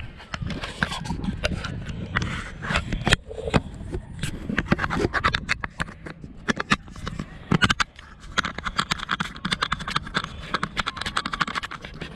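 Handling noise on the camera: irregular scraping, rubbing and clicking against the microphone as the camera is held and moved, over a low rumble.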